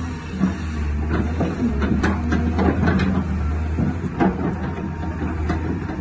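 Caterpillar tracked excavator running, its diesel engine giving a steady low hum while the boom and bucket move, with irregular sharp metal clanks and knocks from the working arm.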